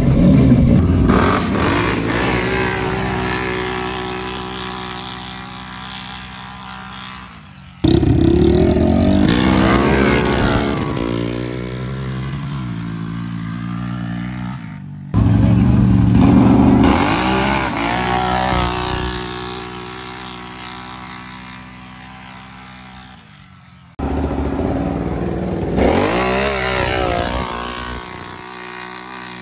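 Sport ATV engines at full throttle, launching and racing away down a dirt drag strip, the pitch rising and dropping as they shift and the sound fading with distance. Four separate runs, each starting loud and dying away, with abrupt cuts between them.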